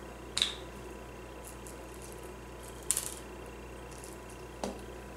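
Three short clicks and rattles of a small plastic sprinkles bottle being handled and shaken over a frosted cupcake, the middle one a brief cluster of clicks, over a faint steady hum.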